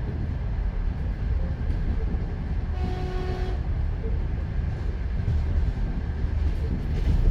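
A train running, with a steady low rumble of wheels on rails. A short horn blast sounds about three seconds in.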